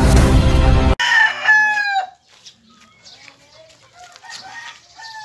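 Music cuts off about a second in, and a rooster crows loudly once, its call falling in pitch at the end. Fainter calls and chirps follow, with another crow near the end.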